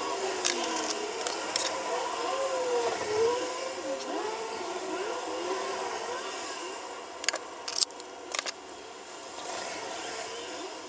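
A woman humming a wandering, sliding tune to herself, with a few sharp clicks of makeup handling, twice near the start and a cluster about two-thirds of the way through.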